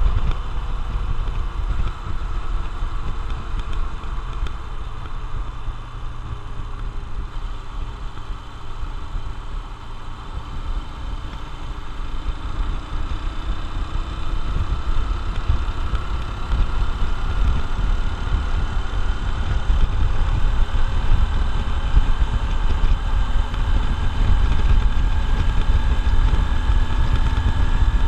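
Honda XR150L's air-cooled single-cylinder four-stroke engine running as the motorcycle is ridden, with wind noise on the microphone. The engine note drops over the first ten seconds or so as the bike slows, then climbs steadily as it speeds up again.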